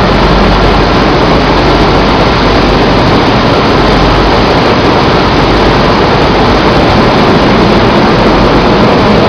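Flour-mill machinery running around a powder bagging machine: a loud, steady, even machine noise with no rhythm and no change.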